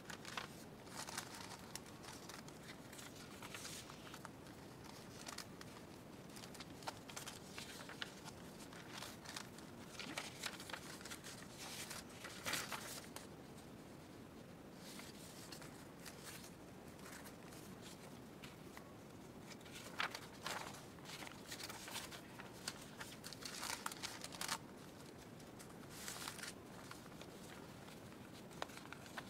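Sheets of paper rustling and sliding against each other as they are handled and layered into a stack, in scattered bursts of crinkling with quiet gaps between.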